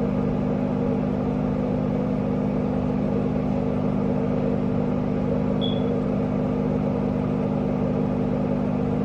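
Steady machine hum made of several low tones, unchanging throughout, with one brief high-pitched chirp a little past halfway.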